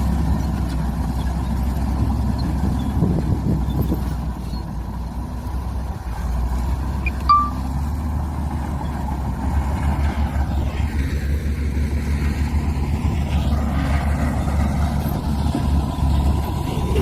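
Heavy diesel earthmoving machinery running under load, a bulldozer and a dump truck, with a deep steady rumble that turns more throbbing about ten seconds in. A short squeak sounds about seven seconds in.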